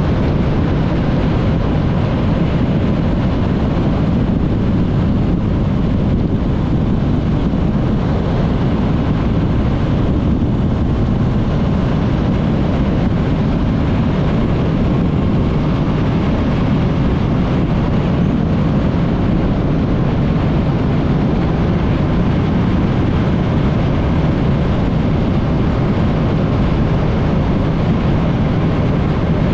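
Motorcycle on the move at a steady pace: the engine running constantly under a dense rush of noise, with no changes or sudden sounds.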